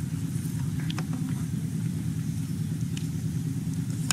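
A steady low rumble runs throughout, with a few scattered light crackles and clicks from battered frogs frying in oil in a wok over a wood fire and being stirred with a ladle.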